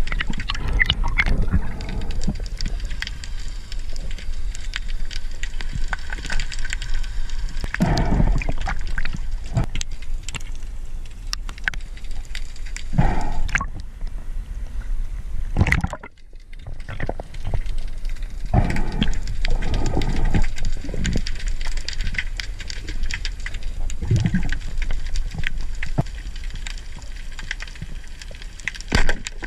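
Water sloshing and gurgling against a camera as it moves underwater and along the surface, with a low rumble throughout and several louder swells of water rushing. The sound drops out sharply for a moment about halfway through.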